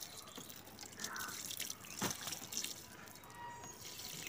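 Water pouring from a plastic watering can's spout onto a potted plant cutting and its soil, splashing and dripping.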